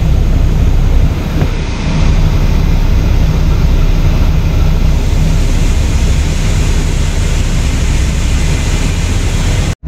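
Grain truck with a 454 big-block V8 running as its dump box raises and shelled corn pours out into the elevator pit: a loud, steady rushing noise over the engine's low hum.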